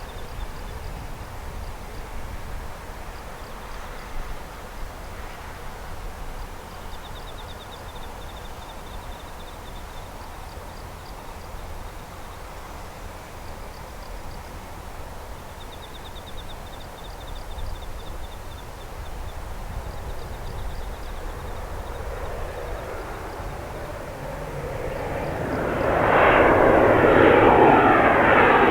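Airliner passing close by: its engine noise builds slowly out of a low background rumble and becomes loud about three seconds before the end, with a sweeping, phasing sound as it goes over. Faint high chirping trills recur in the background.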